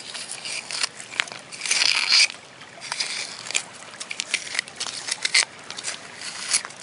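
A knife blade scraping and digging into a wet, gravelly clay creek bank, in a run of sharp scrapes and clicks; the longest, loudest scrape comes about two seconds in.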